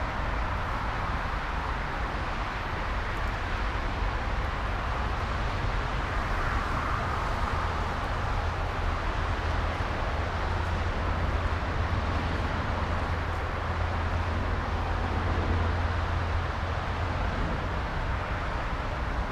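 Earth mover's diesel engine running steadily, a low hum under a noisy mechanical rumble with no revving.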